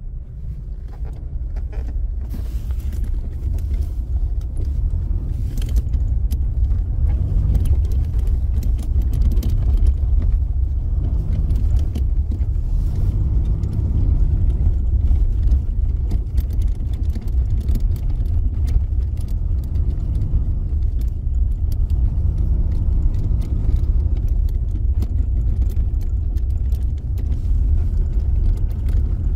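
Small irregular knocks and clicks from the steering column of a 2021 Toyota Hilux over a steady low road rumble, picked up from under the dashboard while driving on a rough dirt road. The knocking is a recurring steering-column noise in this model year, worse on dirt than on asphalt.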